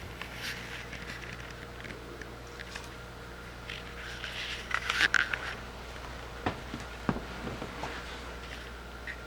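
A rabbit chewing and crunching leafy vegetables in scattered crisp bites, loudest about five seconds in, over a steady low hum.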